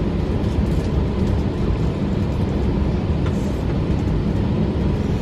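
Steady low rumble of an Airbus A321's cabin on the ground, heard from a seat inside, with a faint steady whine.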